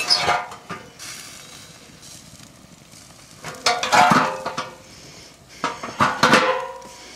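Metal grill hood clanking and rattling on its campfire grill grate as it is lifted and set back down. Three bursts of metallic clatter, each with a short ring: one at the start, one about four seconds in, and one about six seconds in.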